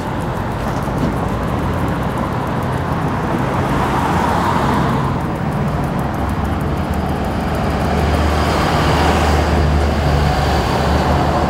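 Street traffic: cars passing on a town's main road, a steady noisy wash that swells about four seconds in, with a heavier vehicle's low engine rumble growing from about seven seconds in.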